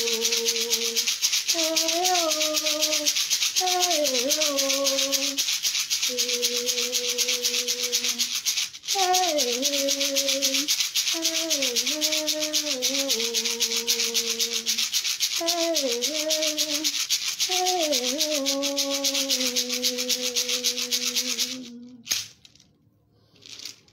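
A white beaded gourd rattle (shekere) shaken steadily in a fast, even rhythm, with a woman's voice humming a slow tune over it in long held notes. The rattle stops shortly before the end.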